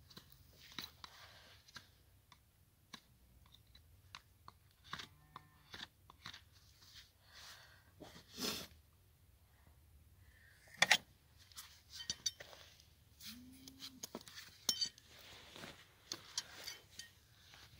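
Hoof knife paring a horse's front hoof: intermittent crunching, scraping cuts through dry, dead sole and frog, with a few sharp snaps, the loudest about 11 seconds in. Hoof nippers come into play near the end.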